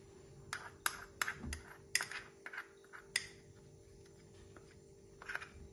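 Sharp clinks and taps of a small glass bowl being knocked and scraped out over a stainless steel mixer bowl as lemon zest and baking powder are emptied in. There are about eight quick clinks in the first three seconds, then a pause and two more near the end.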